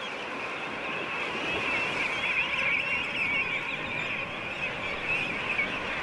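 King penguin colony calling all at once: a dense, steady din of many overlapping, wavering high calls.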